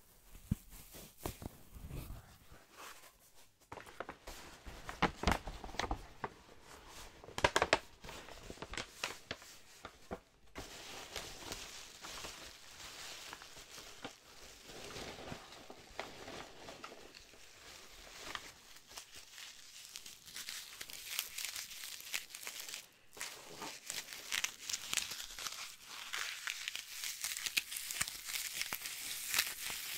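Packaging material crinkled and crumpled right against a microphone. Irregular crackles with a few louder crunches come first; about ten seconds in it turns into a denser, steadier crinkling that grows louder toward the end.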